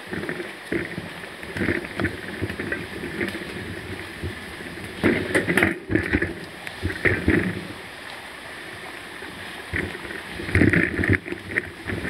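Mountain bike rolling along a leaf-strewn dirt singletrack, heard through a handlebar-mounted camera: steady tyre rumble with irregular rattles and knocks as the bike goes over bumps. The knocks are busiest about five seconds in and again near the end.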